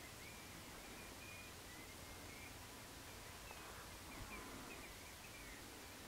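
Faint, scattered short whistled calls from a flock of feeding golden plovers, many notes overlapping at about the same pitch, over a steady faint hiss.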